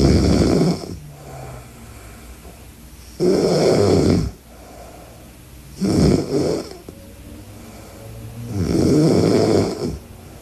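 A young woman snoring loudly in her sleep while lying on her side. Four loud snores come about every three seconds, the third broken into two quick pulses, with quieter breathing sounds between them.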